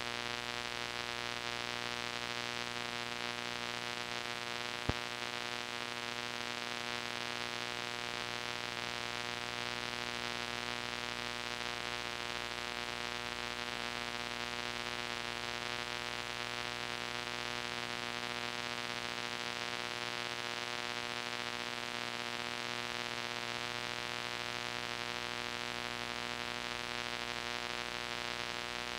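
Steady hiss with an electrical hum from old VHS tape playback, with one sharp click about five seconds in.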